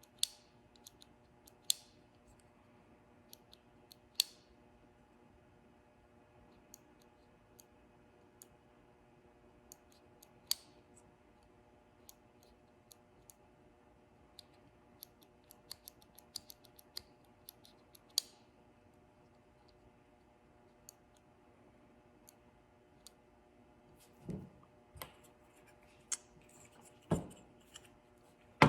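Scattered sharp clicks and small snaps of the plastic hazard-switch housing as it is handled and pried apart, with a few duller knocks near the end.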